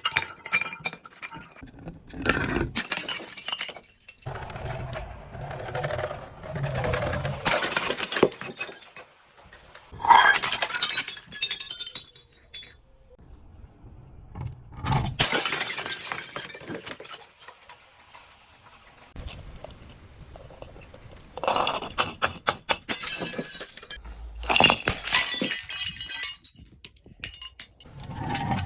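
Glass bottles breaking and shattering, over and over, in bursts of crackling, tinkling glass with quieter gaps between them.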